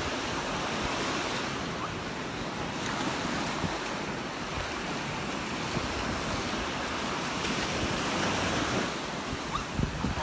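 Surf washing steadily onto a sand beach, mixed with wind buffeting the phone's microphone.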